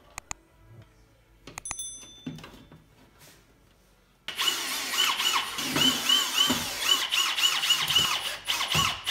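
Speaker being pressed into its plastic door bracket with a few light clicks and knocks, then, about four seconds in, a cordless drill/driver starts running screws into the rim of the 6.5-inch midrange speaker. The motor whine rises and falls over and over as the trigger is feathered.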